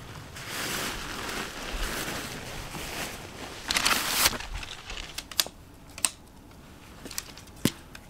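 Tent fabric rustling and crinkling as it is handled, loudest about four seconds in. Then come a few sharp clicks, typical of tent pole sections or buckles snapping into place while a tent is pitched.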